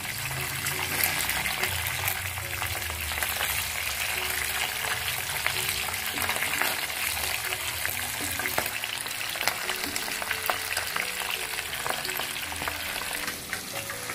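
Pabda fish shallow-frying lightly in hot oil in a nonstick kadai: a steady sizzle thick with small crackles and spits, while a silicone spatula moves the fish about in the pan.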